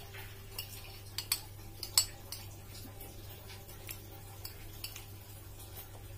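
Metal spoon clinking and scraping against a glass bowl of rice as spoonfuls are scooped, a scattering of light clinks with the loudest about two seconds in.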